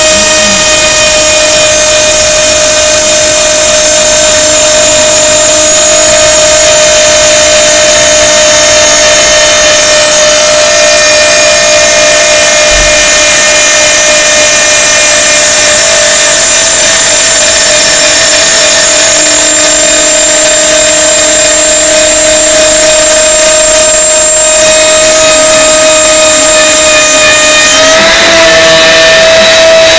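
CNC milling machine spindle with a small end mill cutting a slot through aluminium plate: a loud, steady whine over the hiss of the cut. Near the end the pitch steps slightly higher and the sound gets a little louder.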